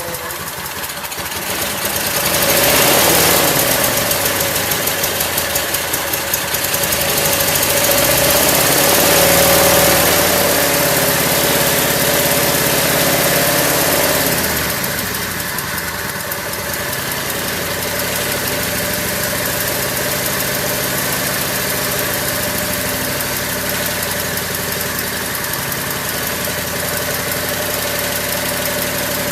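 Craftsman lawn tractor's small gasoline engine running just after its first start in over a year. It runs louder for about the first half, then settles into a steadier, somewhat quieter run.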